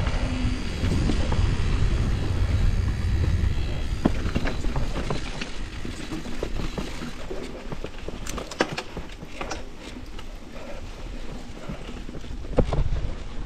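Mountain bike rolling down a dirt and stony singletrack: tyre rumble and wind buffeting the microphone, heaviest over the first few seconds, with sharp knocks and rattles as the bike goes over stones and roots, one of the loudest near the end.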